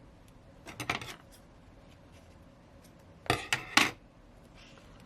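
Light clinks and taps of small hard objects on a work surface: a short cluster about a second in, then three sharp, louder clicks a little past three seconds.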